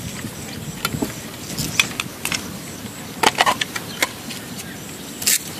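Handling noise as a battery pack is fitted into the frame of a JR Forza 450 RC helicopter: a scatter of short plastic clicks, knocks and scrapes, with a longer rasping scrape near the end.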